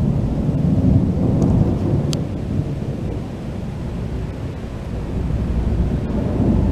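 Thunder rumbling low over steady rain. The rumble eases off around the middle and builds again near the end.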